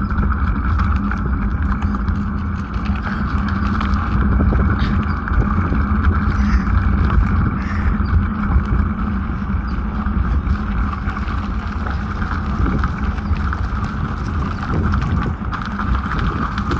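A bike being ridden: a steady low rumble with continual small rattles and clicks.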